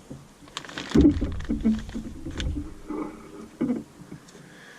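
Handling noises from a new diesel fuel injection pump being picked up and turned over: irregular knocks and taps with some rustling, loudest about a second in.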